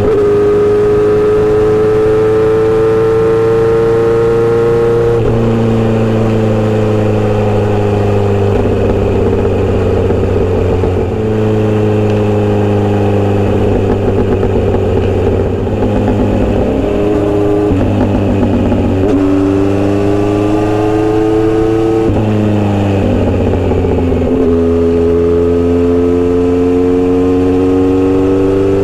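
Kawasaki Z900RS inline-four running through a Misty Kintaro short steel-pipe exhaust with an L silencer, riding along. The engine note climbs and then drops at several gear changes.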